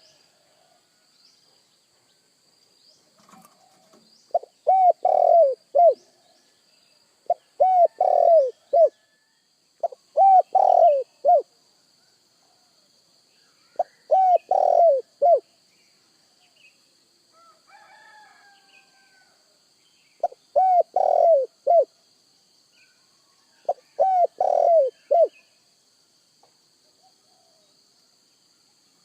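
Spotted dove (tekukur) cooing: six short phrases of three or four coos each, a few seconds apart, with a longer gap in the middle.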